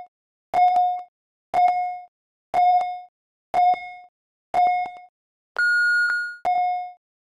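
Countdown timer beeps: a short mid-pitched beep once a second, then about five and a half seconds in a longer, higher beep marking the start of the lift, followed by one more short beep at the first pitch.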